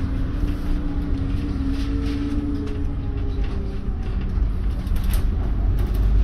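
A bus running, heard from inside its passenger cabin: a low engine and road rumble with a steady hum. Around the middle a fainter whine slides down in pitch, and a couple of clicks or rattles come about five seconds in.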